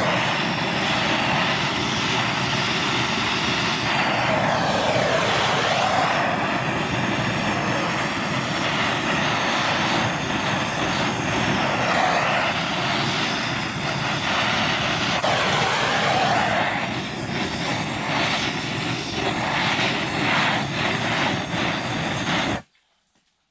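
Hand-held gas torch burning with a steady hiss as its flame heats an aluminium engine crankcase for fitting bearings. Its tone dips and rises slowly now and then, and it cuts off suddenly near the end.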